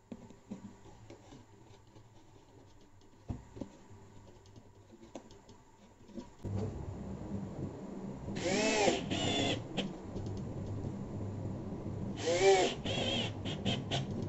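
Cordless drill driving screws into a wooden panel: two short bursts of motor whine, each sweeping up and down in pitch, a few seconds apart in the second half. Before them, faint clicks of wires being handled.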